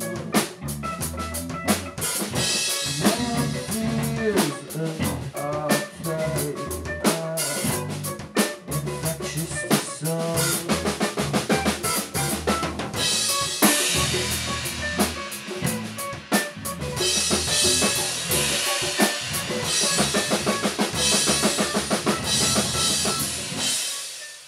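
Live jam on drum kit and electric bass: busy kick, snare and rimshot hits under a moving bass line. About halfway through, heavy cymbal wash joins in. The music fades out at the end.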